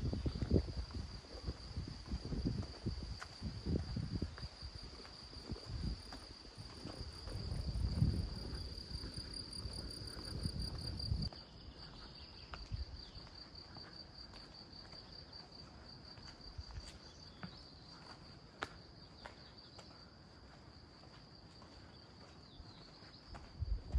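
Insects chirring steadily in a high, finely pulsing trill from summer grass. Irregular low rumbles sit under it for the first half and stop abruptly, leaving only the chirring.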